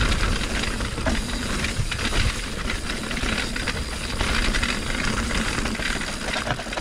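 Steel hardtail mountain bike (Norco Torrent HT S2) riding fast down a rough, bumpy trail: a steady rushing of tyres over dirt and rock, with constant rattles and knocks from the unsuspended bike over the bumps.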